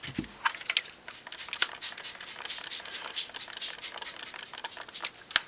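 Trigger spray bottle squeezed over and over, a quick run of short hissing squirts of water dampening the potting soil in a seedling cup.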